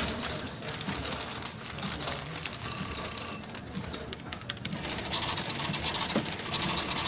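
Cash register at a shop counter: keys clicking and the till's bell ringing twice, briefly about three seconds in and again near the end.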